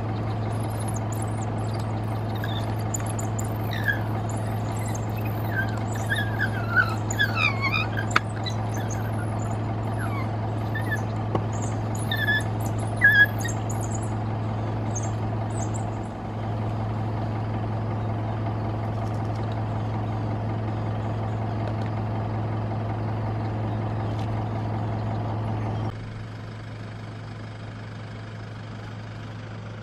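Vehicle engine idling with a steady low hum, and a series of short, high chirping calls from about four to thirteen seconds in. Near the end the hum drops away abruptly, leaving a quieter engine sound.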